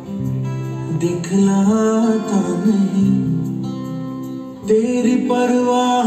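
A song with singing over strummed guitar, dipping briefly a little after four seconds in before picking up again.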